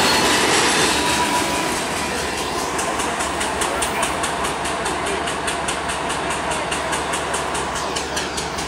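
CSX freight train rolling past, its cars' wheels clicking steadily over the rail joints at about five clicks a second over a rumble.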